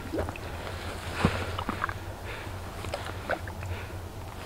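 Quiet scattered clicks and rustles of slush and water being handled at an ice-fishing hole as a lake trout is held for release, over a low steady hum.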